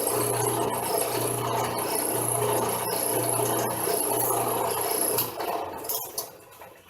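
Drill press running as it drills out a broken bolt in a cast spindle housing, with a steady hum and the grating of the bit cutting metal. It stops about five seconds in and winds down; the owner blames a chuck that doesn't grip the bit.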